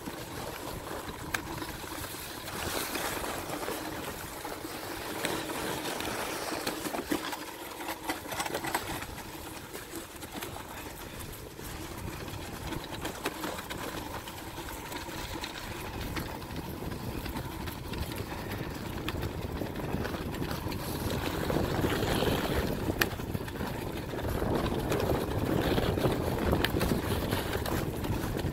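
A sledge sliding fast down a packed-snow road: the runners hiss and scrape on the snow while wind rushes over the microphone. It grows louder toward the end as the sledge picks up speed.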